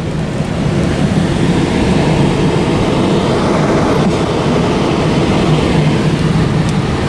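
Automatic gantry car wash's dryer blowers running over the car, a loud, steady rumbling rush of air heard from inside the car.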